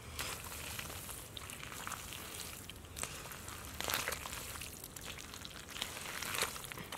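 Bare hands digging and scooping in wet mud, with irregular squelches and wet crackles, louder around three, four and six seconds in.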